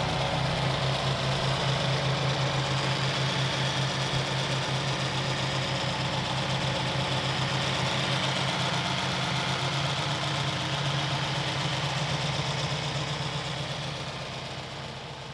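Subaru WRX turbocharged flat-four engine idling steadily after reassembly, with a steady fast pulse, fading out near the end.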